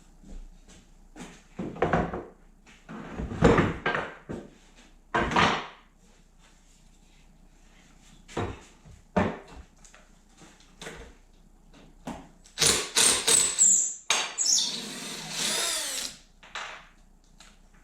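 Cordless drill/driver running in short bursts, backing bolts out of a wooden bench. Near the end it spins up and winds down again.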